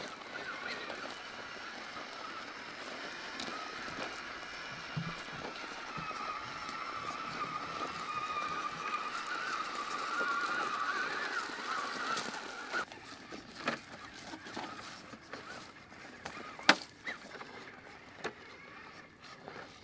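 Electric motor and gear whine of 1/10-scale RC crawler trucks creeping over rock: a wavering whine that stops about twelve seconds in. After it come scattered clicks and knocks, the loudest about seventeen seconds in.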